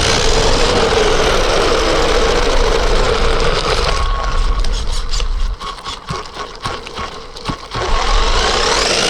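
RC truck's motor and drivetrain whining at speed, the pitch rising and falling with the throttle over a steady rush of noise. About five and a half seconds in it drops quieter for a couple of seconds with scattered clicks and knocks, then the whine comes back.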